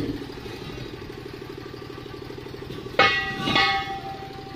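An engine idling steadily with an even low pulse. About three seconds in, a sudden loud bell-like ring cuts in and fades out over about a second and a half.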